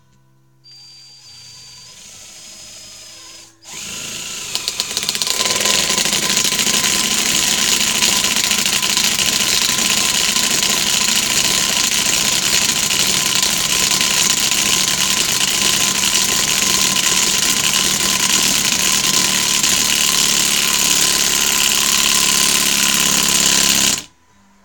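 Harbor Freight 12 V lithium-ion 1/4-inch hex impact driver driving a lag bolt into very hard wood. It starts with a quieter motor whir; about four seconds in, the impact mechanism begins hammering continuously for some twenty seconds, then stops suddenly. The tool is working hard against the hardness of the wood.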